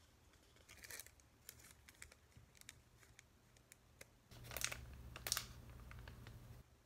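Faint handling noises: scattered clicks and rustles, then two louder scraping rustles about halfway through over a low hum that stops shortly before the end.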